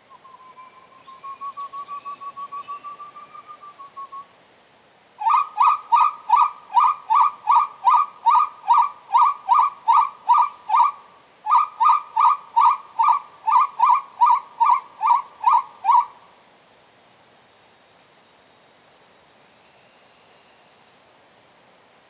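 Wood-quail (uru) call blown on a pio, a hand-held hunting call, to lure the birds in. A softer wavering trill comes first, then after a short pause a long, loud run of quick whistled notes, about two and a half a second, with one brief break partway through.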